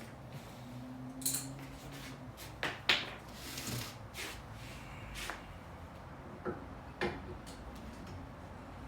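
Tools and metal parts being handled during axle work: a series of separate knocks and clinks, roughly one a second, over a faint steady hum.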